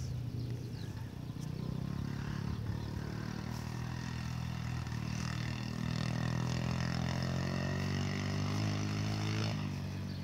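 An engine running steadily, rising in pitch over its last few seconds and cutting off sharply near the end.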